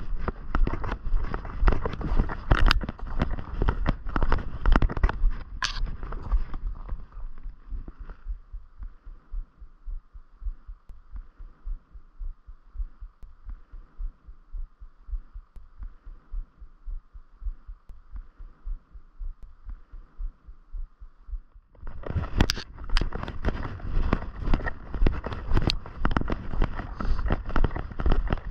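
Wind buffeting the microphone over regular footsteps. About eight seconds in the wind noise drops away, leaving soft, evenly spaced thuds of walking. It comes back suddenly a little before the end.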